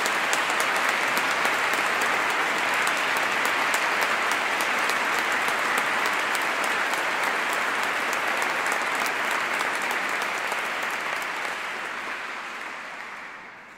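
A large congregation applauding steadily, dying away over the last couple of seconds, after the proclamation of new saints.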